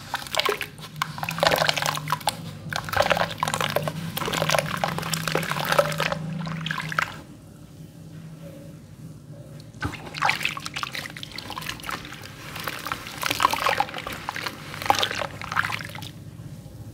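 Hands crumbling wet sand cement in a basin of water, with splashing and sloshing. It comes in two spells several seconds long, with a quieter lull between them.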